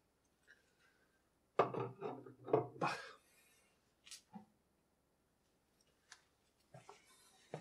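A man gulping beer from a glass, about four swallows in quick succession, then a sharp knock as the glass is set down. Soft rustling and shuffling near the end as he moves away.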